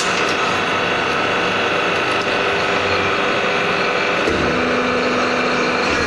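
Hydraulic hose crimping machine running: its pump motor gives a steady mechanical hum with a high whine, and the note changes about four seconds in.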